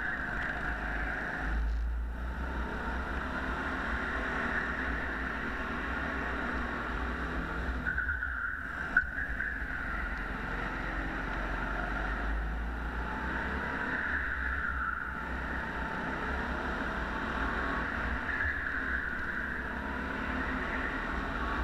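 Rental go-kart engine running steadily as the kart laps, heard from on board with wind and tyre noise mixed in. A single sharp knock about nine seconds in.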